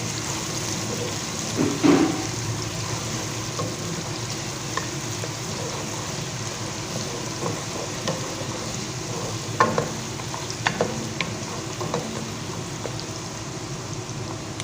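Chopped onion sizzling in hot oil with whole spices, a steady frying hiss. A spatula knocks against the pan now and then, loudest about two seconds in and several times near the end.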